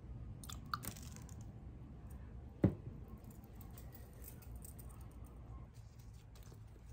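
Hands handling plants and a small ceramic planter: light clicks and leaf rustling, with one sharp knock about two and a half seconds in, over a low steady hum.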